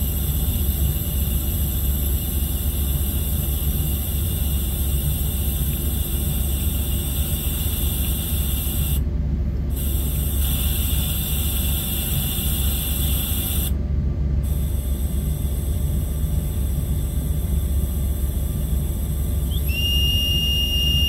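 Compressed air hissing steadily out of a self-contained breathing apparatus's mask regulator while its bypass button is pressed gently, bleeding down the air cylinder. Near the end, the set's low-pressure warning whistle starts as a steady high whistle. This is the alarm that the cylinder's air is nearly used up.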